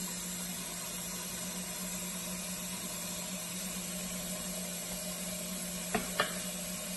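Tap water running steadily from a kitchen faucet into a stainless steel pot of asparagus peels, an even hiss with a low hum under it. Two light knocks about six seconds in.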